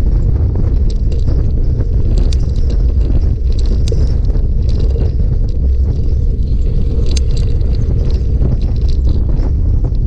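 Wind rumbling on the microphone during a bicycle ride, with scattered small clicks and rattles from the bike.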